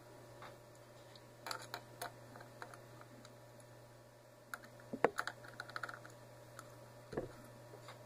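Small scattered clicks and taps of fingers and a small tool working on metal and plastic parts inside an opened laptop's underside, around the heatsink and heat pipe. They come in a cluster about five seconds in, which holds the loudest click, and there is a low knock about seven seconds in.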